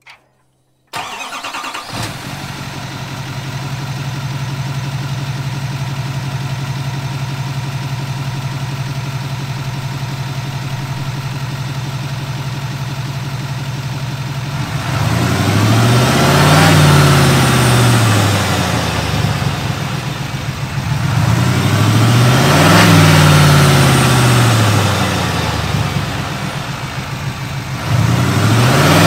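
6.6L Duramax L5P turbo-diesel V8 starting up about a second in, on its first start with a new Banks Ram-Air cold-air intake. It settles into a steady idle, then from about halfway through it is revved three times, each rev rising and falling back.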